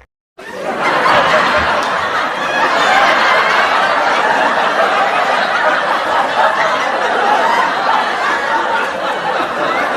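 Many people's voices overlapping in a steady babble of chatter and laughter. It starts abruptly right after a brief gap.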